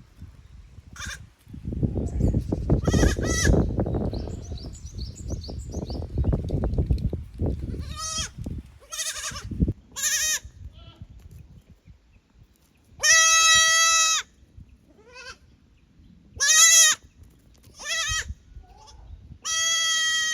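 Goats bleating again and again, high-pitched calls: short ones at first, then several longer, louder bleats of about a second each in the second half. A low rumbling noise runs under the first few calls.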